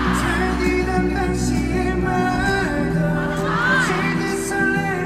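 Live pop song played through a concert PA and heard from the audience: a male singer sings into a handheld microphone over backing music with regular drum hits.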